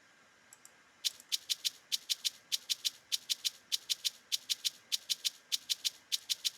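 Programmed afrobeat shaker loop played back from a sampled shaker at 100 BPM. After about a second of silence come short, crisp shakes in groups of three to each beat, on steps 1, 3 and 4 nudged slightly off the grid.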